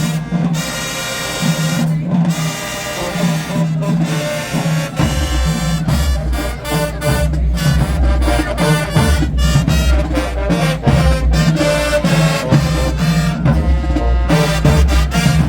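High school marching band playing: brass sustaining loud chords over drums, with the bass drums and full percussion coming in heavily about five seconds in.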